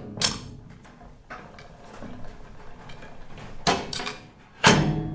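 Short musical outro: a handful of separate notes, each starting sharply and ringing out as it fades, the loudest coming near the end.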